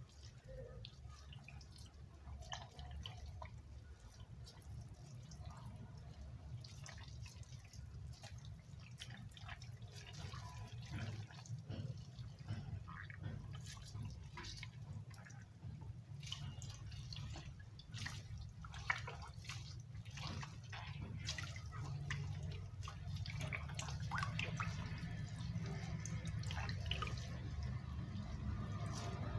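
Raw beef tripe being rubbed and squeezed by hand over a basin of water: drips and small splashes of water falling back into the basin, busier in the second half, over a low background rumble.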